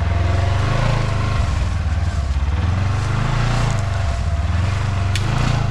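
Polaris Xpedition side-by-side's engine running under load as it creeps forward and pushes past a fallen tree limb, the revs rising and falling. A short click sounds about five seconds in.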